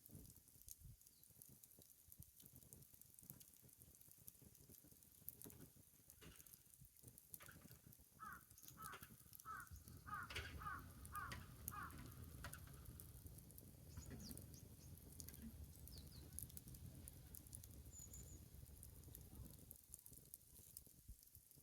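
Wood fire crackling faintly with scattered small pops. In the middle a bird calls a quick run of about eight short notes.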